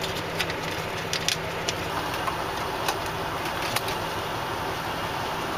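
Steady low hum of an idling truck engine, with a few light clicks and taps scattered through it.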